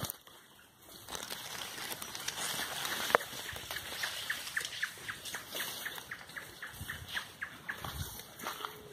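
Brush and leaves rustling as someone pushes quickly through dense vegetation. From about two seconds in, a run of short, falling high calls repeats about four times a second. A single sharp snap comes near three seconds.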